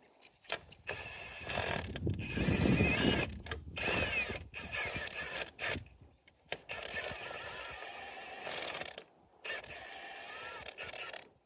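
Mechanical tool noise in four stretches of one to two and a half seconds each, with short gaps between them, from hardware being worked on a Century poly round bale feeder, likely the half-inch stainless steel bolts that hold its ring.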